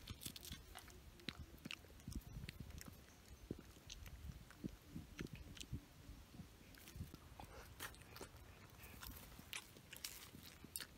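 A person biting and chewing a ripe banana, with irregular soft wet mouth clicks and smacks.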